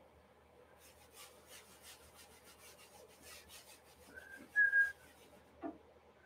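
Faint rubbing strokes of paint being worked onto a stretched canvas by hand, about three strokes a second. About four seconds in come two short high steady tones, the louder of them the loudest sound here, and a light knock follows near the end.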